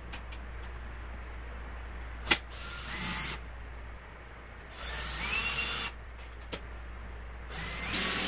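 Cordless drill boring pilot holes through a mini-split's wall-mounting plate into drywall for anchors. There are three short runs of about a second each, the motor's whine rising in pitch as each one starts, with a sharp click just before the first.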